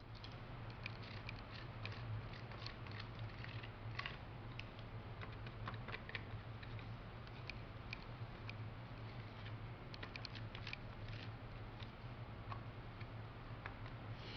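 Plastic scraper working powder across a plastic capsule-filling tray: faint scraping with many small irregular clicks and taps, over a steady low hum.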